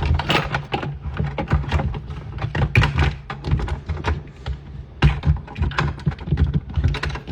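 Irregular run of taps, clicks and knocks from small hard objects being handled, over a steady low hum.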